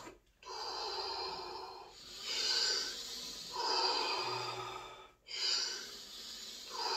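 A man's deep, forceful breaths during Wim Hof power breathing, in and out by mouth in an even rhythm. There are about five breath strokes, each lasting about a second and a half.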